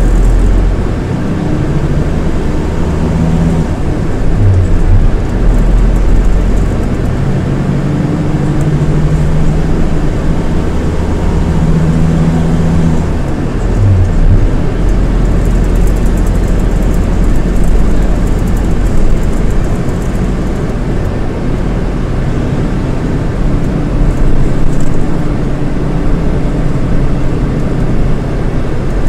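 Scania DC9 230 hp five-cylinder diesel of a Scania K230IB coach running under way, with road rumble; its engine note rises and falls several times.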